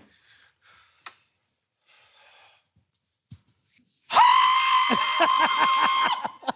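A man's voice making a loud, high, steady vocal noise with a rapid flutter, held for about two seconds, starting about four seconds in after near quiet.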